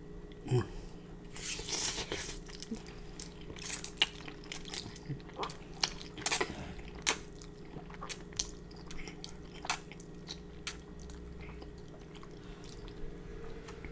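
A person slurping and chewing Korean black bean noodles close to the microphone: wet slurps and sharp chewing clicks, busiest in the first half and sparser toward the end, over a faint steady hum.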